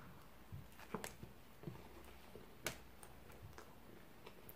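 A person biting into a burger and chewing with the mouth closed: faint, irregular wet mouth clicks and smacks, with two sharper clicks about one and two and a half seconds in.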